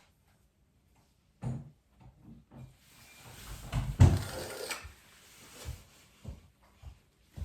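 Rustling and knocks from a roll of fiberglass wall covering being handled: a knock, then about two seconds of rustling with a sharp thump at its loudest, then a few light taps.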